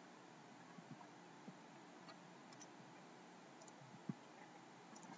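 Near silence broken by a few faint computer mouse clicks, the sharpest about four seconds in.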